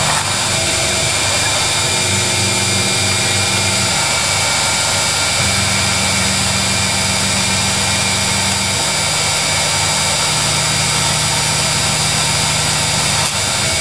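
CNC milling machine cutting a plastic enclosure lid with an end mill: a steady spindle whine and cutting noise, over a lower hum that shifts pitch a few times as the cut moves on.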